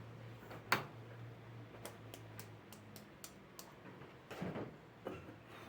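Gas stove's spark igniter clicking in a quick, even run of light ticks, about three a second, after one sharp knock. A couple of duller knocks follow near the end.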